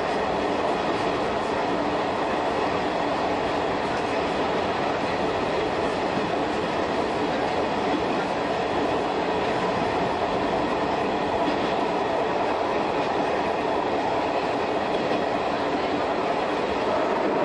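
A Shin-Keisei 200 series electric train with nose-suspended traction motors, heard from the driver's cab while running at speed. The steady running noise of wheels on rails and motors is overlaid with a faint, steady hum.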